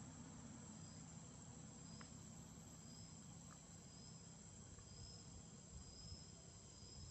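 Near silence outdoors, with a faint steady high insect whine and a softer insect chirp repeating about once a second. Two faint ticks fall partway through.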